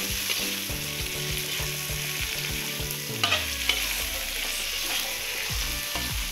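Sliced onion, whole red bird's eye chilies and tomato sizzling in hot oil in a wok, stirred with a metal spatula that scrapes along the pan, with a few louder scrapes a little past halfway.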